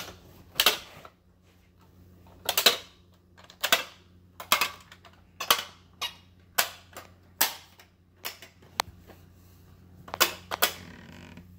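Plastic pop-up activity toy being worked: buttons pressed, the rotary dial turned and spring-loaded doors popping open and snapped shut. A string of sharp plastic snaps and clicks, roughly one a second, some of them in quick pairs.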